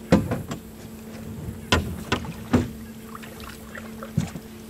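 Sharp knocks on the aluminum johnboat's hull, about six spread out, as bait is handled and put on the trotline hooks. A steady low hum runs underneath.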